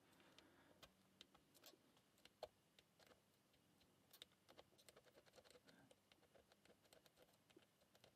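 Near silence broken by faint, scattered clicks of a lock pick working the pins of a five-pin Pollux 5 euro cylinder held under very light tension. One click about two and a half seconds in is a little louder than the rest.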